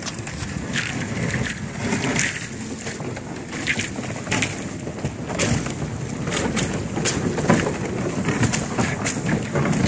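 Sheet ice about an inch thick cracking and crunching against a sailboat's hull as the boat forces its way through it. Irregular sharp cracks and snaps come over a low grinding rumble.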